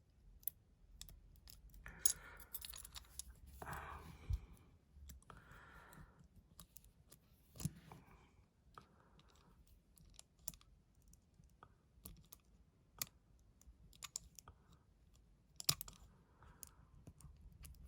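Faint, irregular metallic clicks and brief scrapes of a lever-lock pick working inside a five-lever padlock, with a few short scraping passes in the first half.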